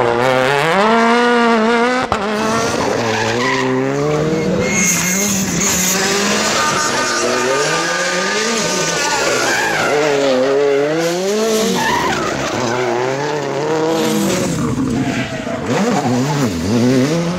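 Turbocharged rally cars, among them a Hyundai i20 Coupe WRC, driven hard through tarmac corners. The engine pitch rises and falls again and again as the cars accelerate and shift gear, and the tyres skid.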